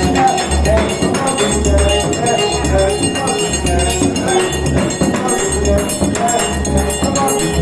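Forró music playing loudly: a low bass-drum thump about once a second under busy jingling high percussion and a melody.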